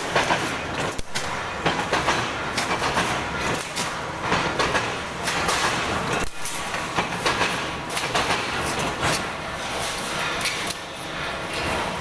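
Sheet-metal guillotine shearing machine running and cutting aluminium sheet: a continuous mechanical clatter broken by many sharp metallic clanks.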